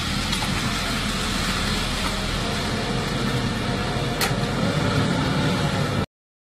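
Diesel engine of an HMC350 self-loading concrete mixer running steadily, with one sharp click about four seconds in. The sound cuts off abruptly about six seconds in.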